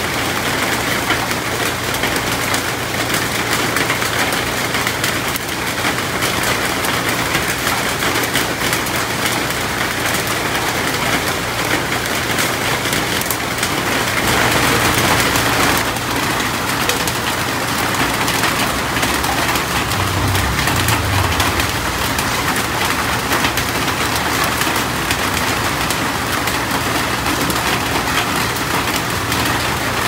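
Steady rain falling on palm fronds and leaves, a little heavier for a couple of seconds about fifteen seconds in.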